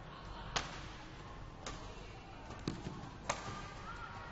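Badminton rally: rackets striking the shuttlecock with sharp cracks, four in all, about a second apart, one of them with a duller thud under it.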